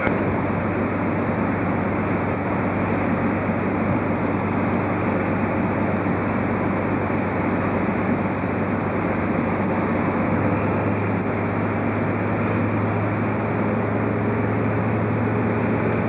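Steady diesel rumble of a first-generation diesel multiple unit approaching along the tracks, its low engine hum growing stronger about ten seconds in.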